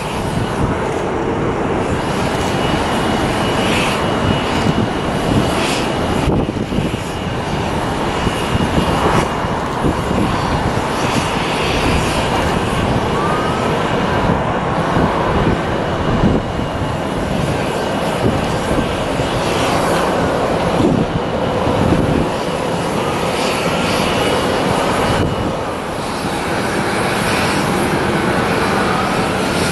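Jet airliner engines running, a loud steady rush of engine noise with a thin high whine through most of it.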